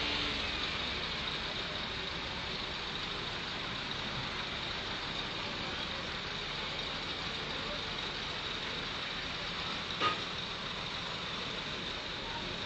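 Engine of an old crawler-mounted piling rig running steadily as the machine crawls up onto a low-loader trailer, with one sharp knock about ten seconds in.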